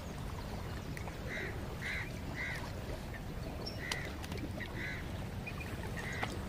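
Waterfowl calling: half a dozen short calls at uneven intervals, over a steady low rumble.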